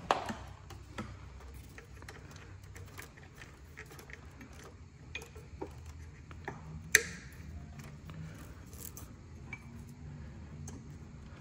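Faint rattling and small clicks of e-bike wiring and plastic XT60 connectors being handled, with one sharp click about seven seconds in.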